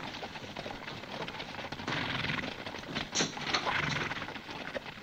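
Horses' hooves clattering in quick, irregular beats.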